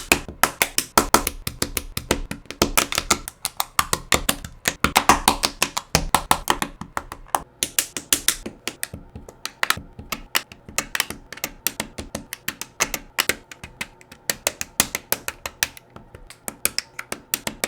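Plastic LEGO bricks clicking and snapping together in a rapid, near-rhythmic run of sharp clicks, several a second.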